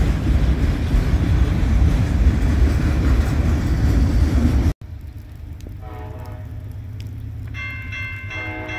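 Freight train cars rolling past at close range, a loud steady rumble of wheels on rail. It cuts off suddenly about five seconds in, and distant locomotive horns start sounding; a second, higher-pitched horn joins near the end and blows over the first.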